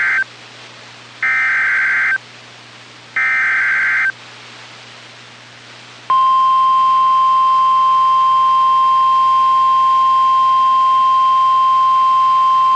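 NOAA Weather Radio emergency alert: the end of one SAME digital header burst, then two more buzzy data bursts about a second long, two seconds apart. About six seconds in, the steady 1050 Hz Warning Alarm Tone starts and holds, which announces a new warning.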